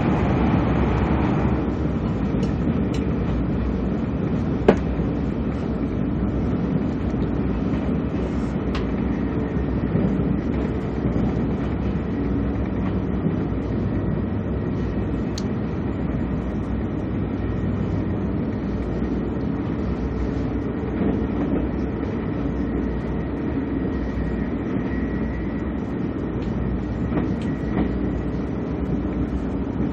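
Cabin noise of a KTX-Sancheon high-speed train running at speed: a steady rumble and rush of wheels and air. A louder hiss drops away about a second and a half in, and a few faint clicks come through, one sharp tick near five seconds.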